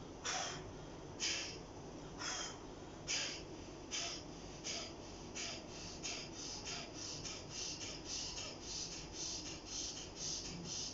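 Kapalabhati pranayama breathing: a run of short, forceful exhalations pushed out through the nose by the abdomen. The huffs come about once a second at first and speed up to about three a second.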